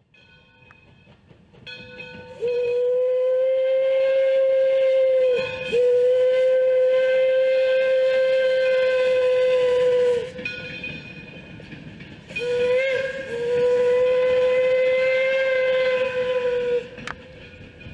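Steam whistle of an 1897 Baldwin steam locomotive blowing three long, steady blasts, the first swelling up over its first couple of seconds. Between and after the blasts the train is heard running along the track.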